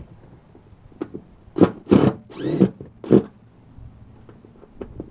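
A few loud, short scrapes and rubbing noises from hands and tools working on a wooden subwoofer enclosure, bunched together about one and a half to three seconds in, one of them a longer squeaky scrape.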